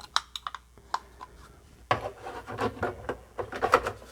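Diagnostic cartridge being handled and pushed into the Commodore 64's cartridge (expansion) port. A few light plastic clicks come first, then about two seconds of dense scraping and rubbing as the cartridge goes in.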